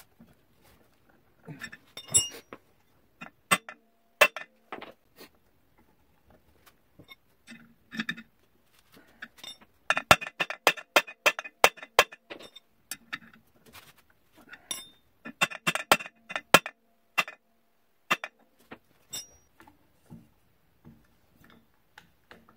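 A ratchet wrench clicks in two quick runs, about ten and sixteen seconds in, as it tightens a clutch puller against a seized snowmobile primary clutch. Scattered sharp metal clinks and taps come from the tools on the clutch.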